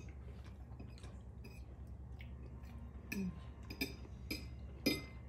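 Metal forks clinking on ceramic dinner plates: a few light clinks in the second half, the loudest near the end, over a steady low hum.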